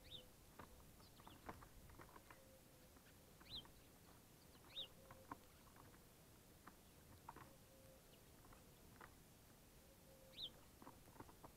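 Faint, scattered clicks of European greenfinches and sparrows pecking at and cracking black sunflower seeds, with a few short bird chirps, each a quick downward slur.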